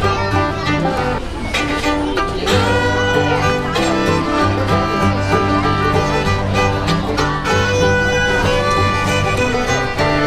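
Background music: a fiddle-led tune in a bluegrass style, playing continuously over a steady bass line.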